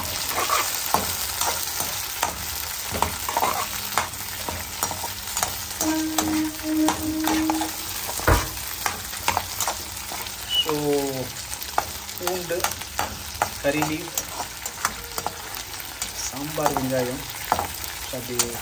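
Shallots, garlic, dry red chillies and curry leaves sizzling in hot oil in a kadai, stirred with a perforated metal spoon that clicks and scrapes against the pan. There is one harder knock of the spoon on the pan a little past the middle.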